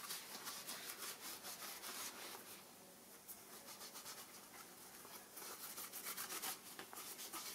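An alcohol wipe rubbed back and forth over a motorcycle helmet's shell to clean it: faint, repeated swishing strokes, thinning out in the middle and picking up again near the end.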